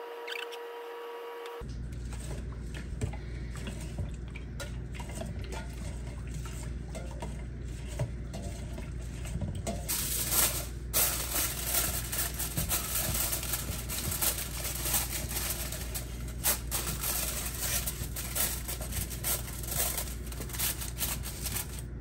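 Hands working in rice and water in a metal mixing bowl in a steel sink, with light knocks against the bowl. From about ten seconds in, aluminium foil crinkles and crackles as it is pressed and crimped over the bowl's rim.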